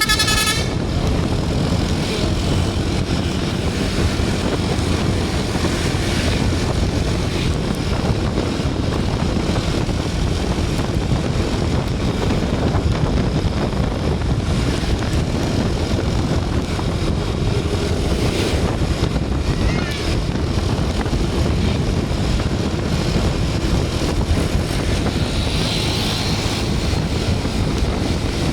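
Steady engine and road rumble of a moving vehicle. A brief high tone sounds right at the start.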